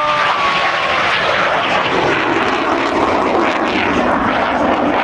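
Blue Angels F/A-18 Hornet jet flying past, with a whine that drops in pitch over the first second as it goes by, then a loud, steady rush of engine noise.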